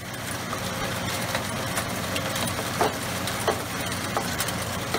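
MBMM gold shaker table running: a steady hum from its drive with the hiss of wash water spraying from the water bar and flowing over the grooved deck, and a few sharp clicks along the way.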